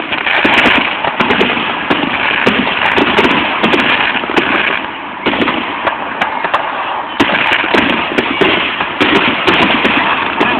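Aerial fireworks shells bursting one after another, a continuous loud run of bangs and crackling, with heavier bursts every second or two.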